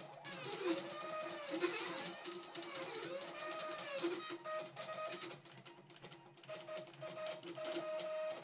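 Stepper motors of a Zen Toolworks 7x12x5 desktop CNC router driving its axes. A whining tone sweeps up and falls back as each move speeds up and slows down, three times in the first half. It then turns to short steady hums that start and stop between moves.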